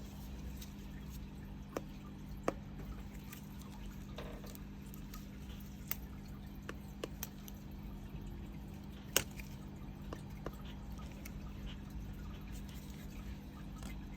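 Scattered small clicks and taps, the loudest about nine seconds in, over a steady low hum.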